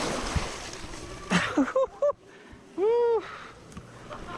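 Rushing, splashing water as a mountain bike ploughs through a deep creek crossing, fading after about a second, followed by short vocal exclamations and a drawn-out "ooh" about three seconds in.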